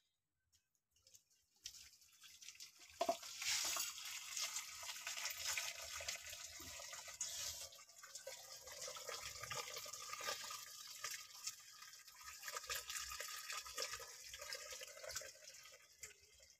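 Hot starchy water being drained off a pot of boiled rice, poured in a steady stream from the tilted steel pot into a metal pan, splashing and trickling. It starts about two seconds in, grows louder a second later and tapers off near the end.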